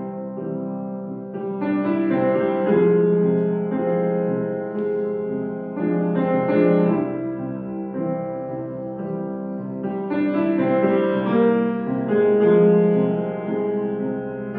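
Bösendorfer grand piano playing a solo passage of a gentle classical piece, its chords swelling twice, about one and a half seconds in and again about ten seconds in.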